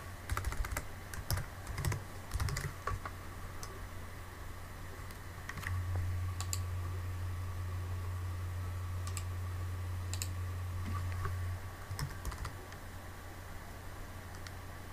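Computer keyboard keystrokes and mouse clicks, a quick cluster in the first three seconds, then single scattered clicks. Under them runs a steady low hum that grows louder for several seconds in the middle.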